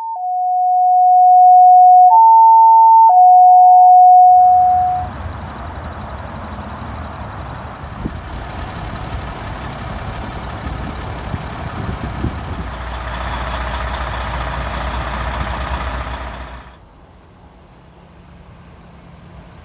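Loud electronic tones, two steady pitches alternating, for about four seconds; then a heavy vehicle's engine rumble under a steady rushing noise, which drops off sharply to a quieter rumble near the end.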